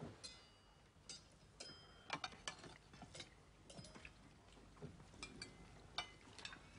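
Spoons clinking and tapping faintly against china soup plates as several diners eat, in scattered, irregular light clinks, some with a brief ring.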